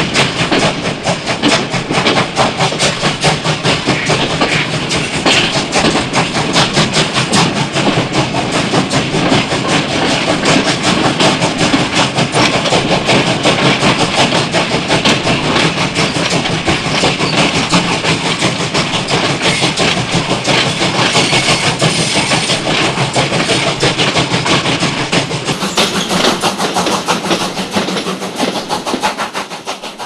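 Steam train running, with a fast, steady clatter that fades out near the end.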